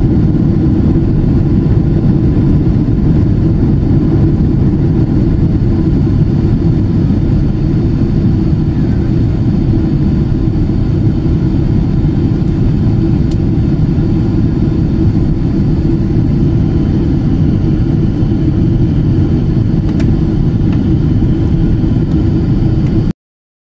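Steady jet engine and airflow noise heard inside an airliner's cabin in flight at low altitude: a dense, even low rumble. It cuts off suddenly near the end.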